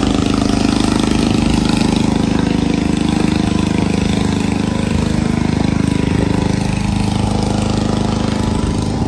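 A houseboat's diesel engine idling with a steady, fast, even pulse.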